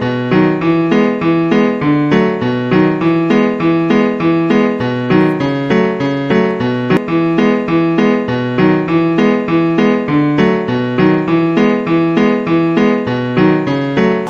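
Background music: a piano or electric-keyboard tune of steadily repeated notes, about three a second.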